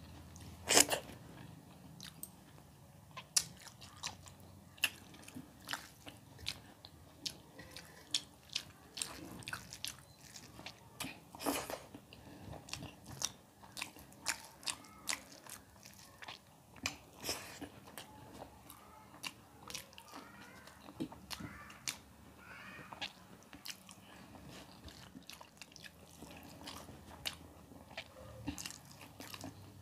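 Close-miked chewing of a person eating rice, dal and vegetables by hand: a continual run of short, sharp mouth clicks and crunches.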